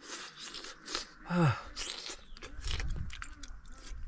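A person chewing a hot mouthful of food taken from chopsticks, with breathing and small mouth clicks. About a second and a half in there is a short falling "mm".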